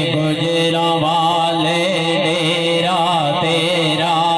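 Men's voices chanting zikr together: a steady, low held drone with a voice wavering melodically above it, continuous and without pauses.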